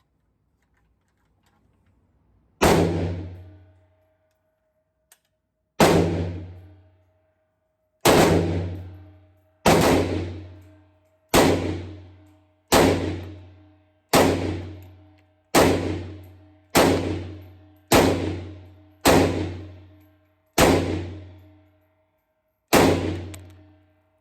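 Thirteen gunshots fired at a slow, uneven pace, one to three seconds apart. Each crack rings out and fades over about a second and a half, with a lingering metallic ring.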